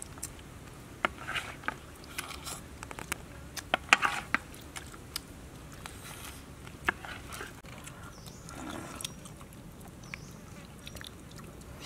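People eating mantis shrimp: scattered bites and crunches of shell, with small clicks and wet mouth smacks coming in short irregular bursts.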